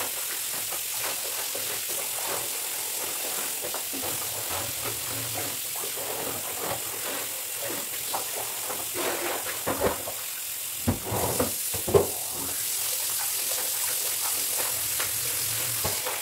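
Clothes being hand-scrubbed in a basin of soapy water: irregular wet rubbing, squelching and sloshing, with a few louder splashes about nine to twelve seconds in.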